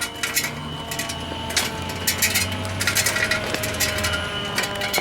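Irregular clicks and clinks of small hard objects being knocked or handled, scattered through the few seconds, over a faint steady high tone.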